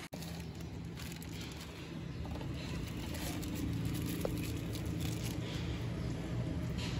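Plastic wrapping being peeled and torn off a new cartridge oil filter element, crinkling and rustling in the hands, over a steady low hum.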